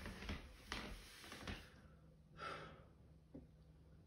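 Quiet room with faint rustling and clicks, then one audible intake of breath about two and a half seconds in.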